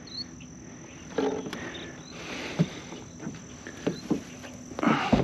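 Knocks and rustles of a duck-boat blind being folded down: camouflage-wrapped frame poles and burlap cover bumping against the aluminium boat, with a cluster of the loudest knocks near the end. A steady high drone of insects runs underneath.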